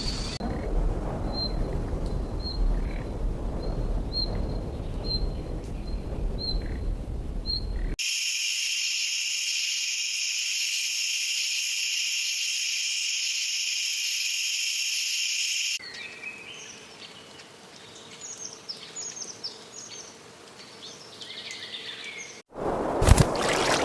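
A sequence of spliced nature recordings. It opens with a low wind-like rumble and a faint short chirp about once a second. Then comes a steady, high buzzing insect chorus for several seconds, then songbirds chirping over a quieter background. Near the end a brief dropout cuts to a loud rushing noise.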